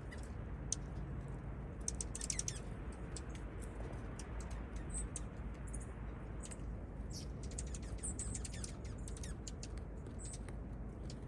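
Small songbirds chirping: many short, high-pitched chirps, with a quick cluster of notes about two seconds in, over steady low background noise.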